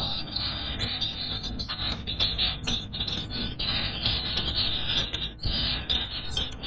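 Wind buffeting a phone's microphone: an uneven, gusty rumble and rush with many small crackles.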